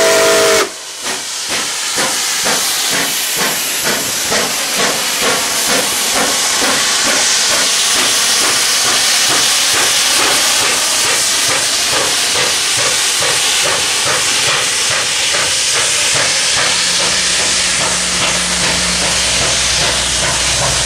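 Nickel Plate Road No. 765, a 2-8-4 Berkshire steam locomotive, ends a steam-whistle blast under a second in, then passes close by with its exhaust chuffing at about two and a half beats a second under a steady hiss of steam. The chuffs blend into a continuous steam and rolling noise as the tender and cars go by.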